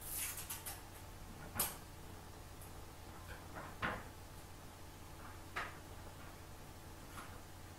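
Household knocks and clicks, most likely kitchen cupboard doors opening and closing: a quick clatter at the start, a sharp knock about a second and a half in, another near four seconds and lighter ones later, over a low steady hum.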